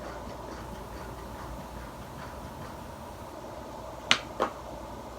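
Two short, sharp clicks or hisses about four seconds in, half a second apart, over a steady low background hum.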